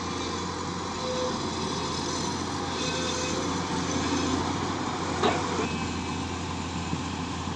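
SANY SY205C crawler excavator's diesel engine running steadily as the machine travels on its tracks over dirt, with a single sharp knock about five seconds in.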